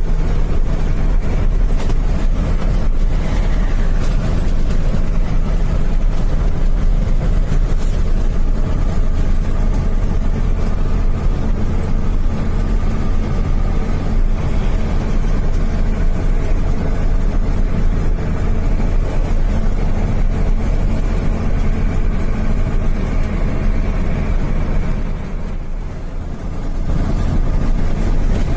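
Engine running steadily with a loud, low drone, easing off briefly near the end.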